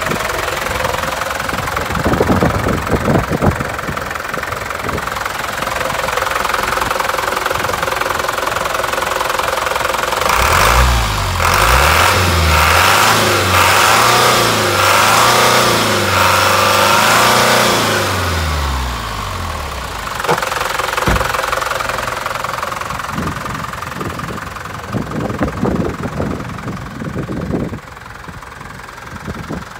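Mitsubishi Canter truck's diesel engine running with a knocking clatter. For several seconds in the middle it is louder, and its pitch rises and falls.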